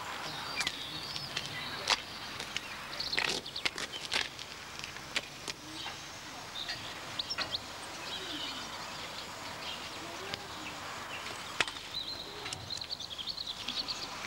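Outdoor street ambience with small birds chirping now and then, and a few sharp clicks or knocks, the loudest about two seconds in.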